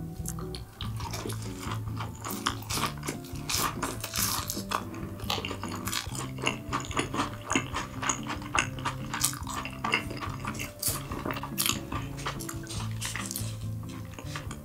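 Cutlery clicking and scraping against dishes in quick, irregular strokes, over light background music.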